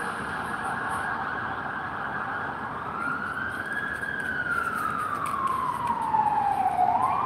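A siren wailing: its pitch rises, falls slowly over about three seconds and starts to rise again near the end, over a steady hiss.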